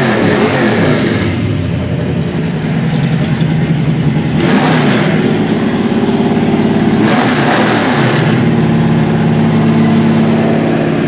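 1972 Chevy Nova SS's built 540-horsepower V8, running on E85, idling steadily and revved twice, about four and seven seconds in.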